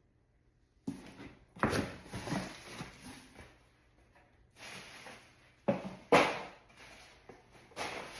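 Pieces of a new non-stick cookware set and their packaging being handled: rustling with several sharp knocks, the loudest about six seconds in.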